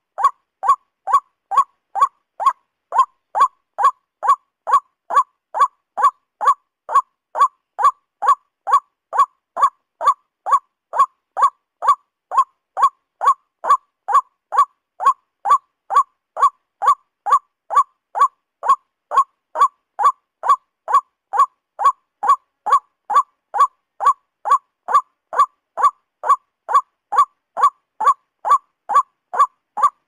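Male white-breasted waterhen (ruak-ruak) calling: one short, loud note repeated evenly, about twice a second.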